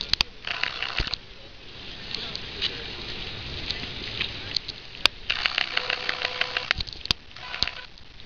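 Outdoor crowd noise: indistinct voices of people around, with a few sharp clicks or knocks at intervals.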